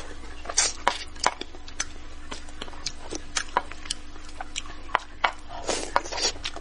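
Close-miked eating: wet mouth clicks and lip smacks while chewing braised fish, with a slurp near the end as a piece is sucked off the chopsticks.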